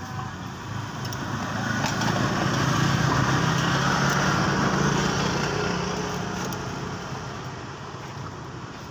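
A motorcycle passing close by, its engine note swelling as it approaches, loudest about three to five seconds in, then fading away.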